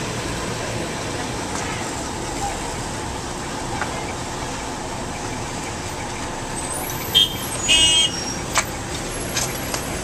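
Steady outdoor background noise, with a few short, high-pitched sounds about seven and eight seconds in and a sharp click soon after.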